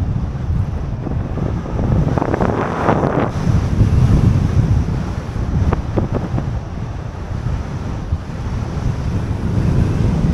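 Airflow buffeting the microphone of a paraglider pilot's harness camera in flight, a steady low rumble of wind. It turns harsher for about a second, two seconds in.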